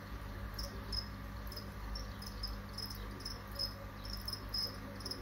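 A cricket chirping in short, high chirps, about two or three a second at an uneven pace, over a steady low hum.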